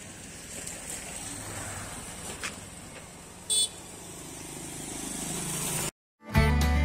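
Outdoor road-traffic noise from passing vehicles, a steady rumble that swells toward the end, with a short high-pitched horn beep about three and a half seconds in. It cuts off abruptly near the end, and acoustic guitar music starts.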